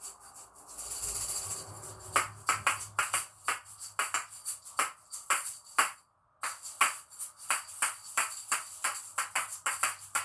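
A pair of small plastic Patica Neo asalato (shaker balls on a string) being played: a brief rattling shake, then a run of sharp clacks as the two balls strike each other, about three a second. The sound cuts out completely for a moment about six seconds in, then the clacking carries on.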